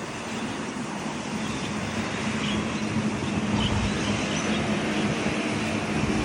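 Steady low motor hum over broad rushing noise, with a few faint short high chirps.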